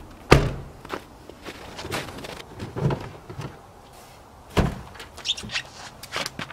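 A heavy thump as the pickup's door shuts, then shuffling steps and knocks, and a second heavy thump about two-thirds of the way through as he climbs on and reaches into the truck bed, followed by light rustling of a plastic bag.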